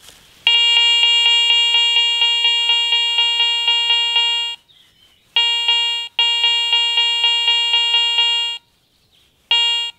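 Garrett ACE 400i metal detector sounding its target tone as it registers a gold coin held at the edge of its detection range in an air test. It gives a steady mid-pitched beep that pulses about four times a second. The tone cuts out twice and comes back, the last time only briefly near the end.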